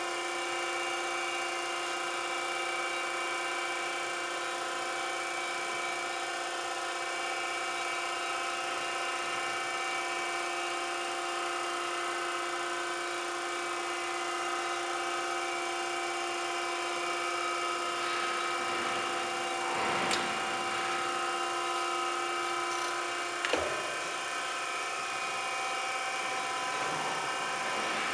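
Norton hydraulic surface grinder running: a steady machine hum with several pitched tones from its motor and hydraulic pump as the hydraulic table traverses back and forth. A brief clatter comes about two-thirds of the way in, followed shortly by a sharp knock.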